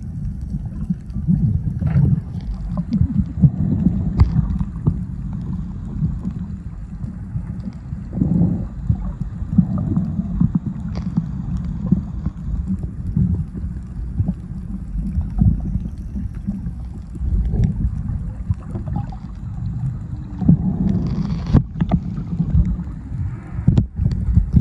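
Muffled underwater noise: a steady low rumble of water moving around the submerged recorder, with occasional sharp clicks and knocks.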